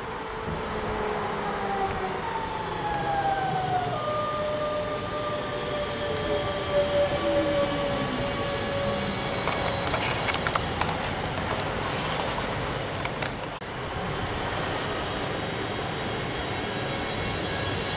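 DB class 425 electric multiple unit running into a station, its traction motors giving a siren-like whine that falls in pitch in steps as it slows, then holds steady. A few clicks about ten and thirteen seconds in, over the rumble of the train.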